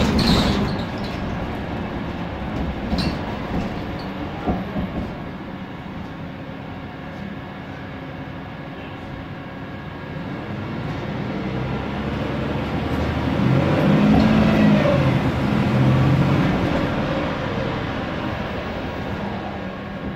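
Cabin noise of a Mercedes-Benz Conecto G articulated city bus under way: steady running noise with sharp rattles and clanks from the bus's fittings, loudest right at the start. Over the second half the CNG engine's note grows louder as it pulls, then fades again.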